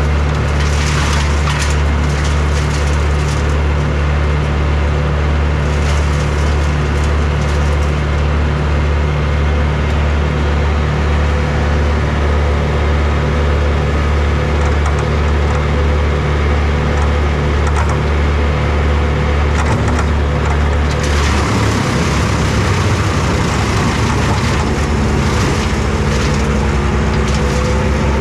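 Kubota V3600T diesel engine of a disc wood chipper running steadily. About three quarters of the way in its sound shifts and gets rougher for a moment, then it steadies again.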